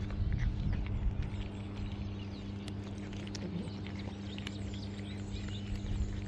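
Cats crunching dry kibble: irregular, rapid crunchy clicks, over a steady low hum.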